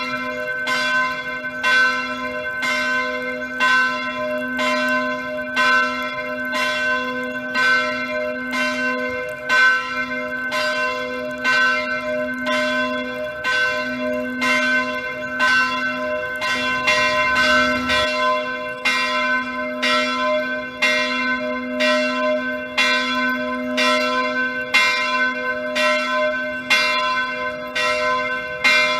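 Church bells ringing the 11 o'clock peal, struck about three times every two seconds, with their tones ringing on between strikes under a steady low hum.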